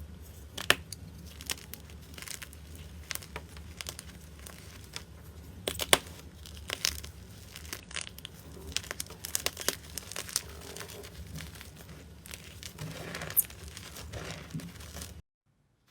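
Slime being squeezed and pulled apart by hand, giving many sharp crackles and pops, which stop abruptly near the end.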